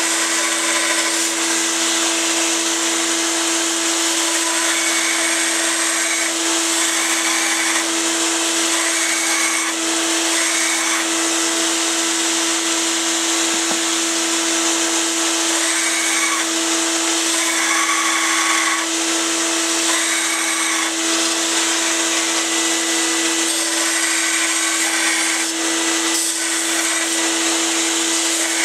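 Belt sander running steadily together with a shop vacuum, while a steel knife blank is pressed to the belt in short passes, each adding a grinding rasp that comes and goes every few seconds, as the blade profile is ground.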